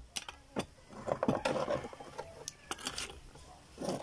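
Oyster shells clicking and scraping as they are handled and pried open, in irregular sharp clicks with a denser patch of scraping about a second in.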